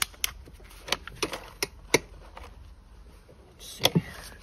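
Thin water-bottle plastic used as a rim protector crackling as it is handled and pulled out from between the tire bead and the rim, making scattered sharp clicks with a brief louder rustle near the end.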